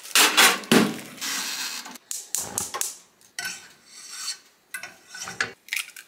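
Kitchen prep sounds: rustle and clatter as bread goes into a toaster oven, then a butter knife scraping across a ceramic-coated frying pan, and a few sharp cracks near the end as eggs are cracked on the pan.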